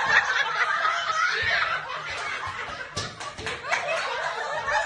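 A group of women laughing together, with a few sharp smacks about three seconds in.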